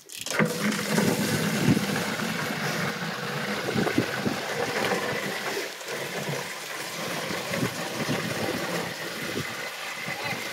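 Water from a hose gushing into a plastic watering can and splashing, starting suddenly just after the start and running steadily.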